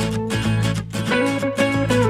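Background music led by a plucked, strummed guitar.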